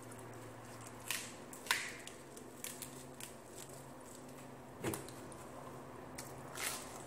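Eating sounds: a crisp lettuce leaf crackling as it is folded around food in the hands, with chewing. There are a handful of sharp crackles, the loudest about two seconds in.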